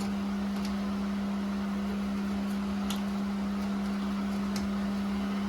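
A steady low electrical or mechanical hum, one constant tone that does not change, with a few faint light clicks.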